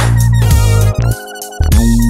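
Electronic background music with a heavy bass. The bass cuts out for about half a second just past the middle.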